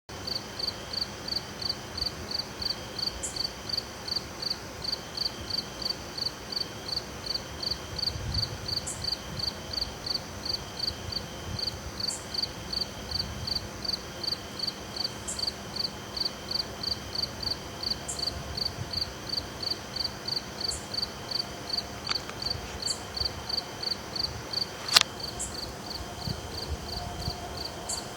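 Crickets and other night insects chirping: one high chirp repeating evenly about twice a second over a steadier, higher trill that stops and starts. A single sharp click near the end.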